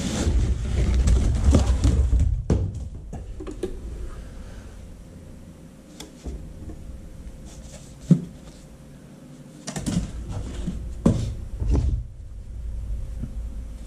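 Foam packing scraping and rubbing against the compressor and cardboard box as the compressor is lifted out. This is followed by a few scattered knocks and thumps as the unit and its packing are handled on the floor.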